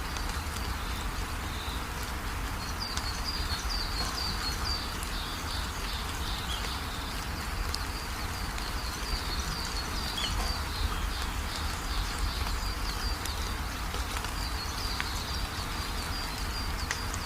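Steady rain falling, with scattered drop ticks. A bird calls through it in runs of quick, high, repeated chirps, a few seconds in, around the middle and again near the end.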